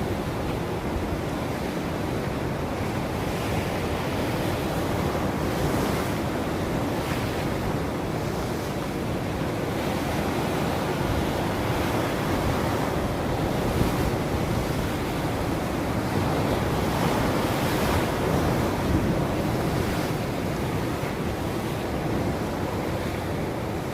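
Ocean waves breaking and washing on a shore, a continuous surf rush that swells and eases slowly, with some wind.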